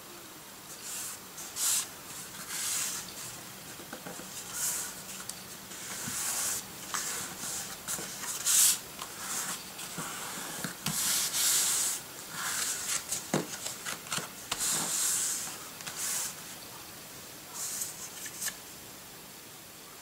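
Hands rubbing and sliding a layered cardstock card on a tabletop, smoothing the glued mat down, in a series of irregular papery swishes that stop near the end.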